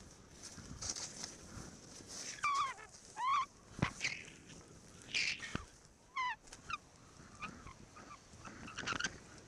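Skis sliding on packed snow through turns, with several short squeaks and a couple of sharp clicks.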